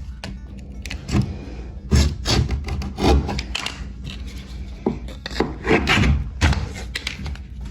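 Hand blade scraping and cutting old silicone caulk away from the shower edge, in irregular strokes, with a steady low hum underneath.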